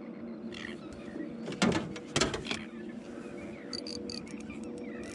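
A steady low hum, as from a boat's motor, with two loud knocks about two seconds in and a few light ticks near the end.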